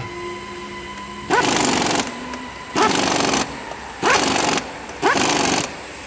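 Pneumatic impact wrench running in the bolts of an engine's cooling fan: four short bursts about a second apart, each rising in pitch as the air motor spins up.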